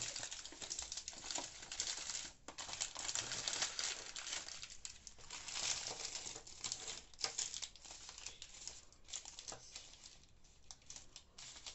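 Foil wrappers of small chocolate bars crinkling and rustling as they are picked up and laid down by hand, in irregular crackles that thin out in the later part.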